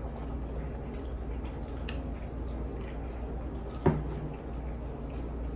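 Ketchup squeezed out of a plastic squeeze bottle, with a few small squirting clicks and sputters, then a single sharp knock about four seconds in.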